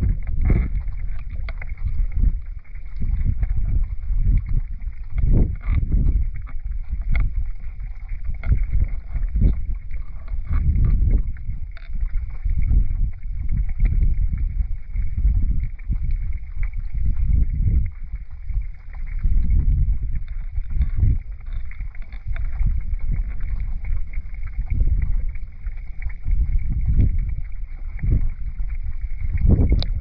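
River current heard underwater through a submerged camera's housing: a muffled, irregular low rumble that surges every second or two, with a few faint clicks.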